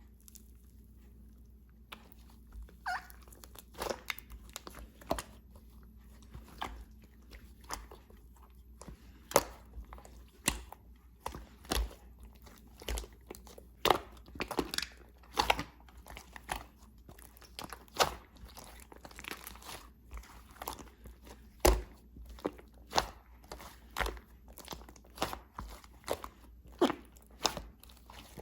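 Slime being squished, stretched and mixed by hand, giving irregular crunchy pops and clicks, about one or two a second, starting about two seconds in.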